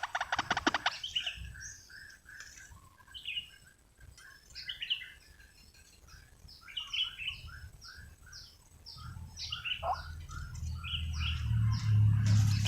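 Small birds chirping, with many short, repeated down-slurred whistled notes. A fast rattling call stops about a second in, and a low rumble builds toward the end.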